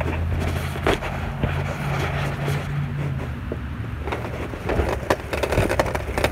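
Scooter wheels rolling over pavement: a steady low rumble that fades a little past halfway, with scattered clicks and knocks.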